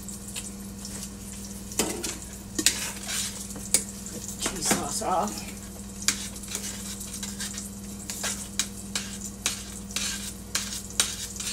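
A metal spoon stirring broccoli into cheese sauce in a stainless steel saucepan, clinking and scraping irregularly against the pot.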